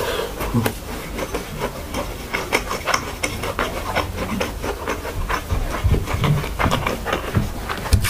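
Close-miked chewing and mouth sounds of someone eating fried rice: an irregular run of soft smacks and clicks, mixed with the light scrape of fingers gathering rice on a plate.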